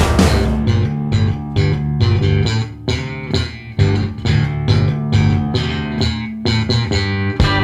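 Rock song in a sparser passage: bass guitar and a picked guitar riff with the drums pulled back, the full band coming back in right at the end.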